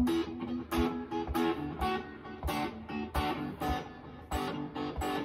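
Jackson electric guitar played in short, rhythmic chord stabs, several strings picked at once, about two a second, each with a low thud, in a rock-riff phrasing.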